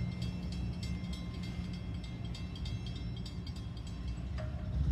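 Freight train cars rolling away on the rails: a steady low rumble with faint clicking and thin high tones from the wheels.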